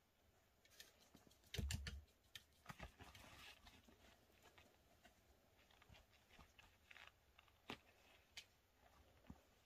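Kitten pawing and scrabbling at a nylon backpack: faint scratchy rustles and light clicks, with a louder thump about one and a half seconds in.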